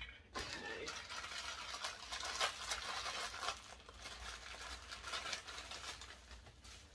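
Plastic wrapping rustling and crinkling as hands unwrap a small packaged item, with a couple of sharper crackles around two and a half and three and a half seconds in.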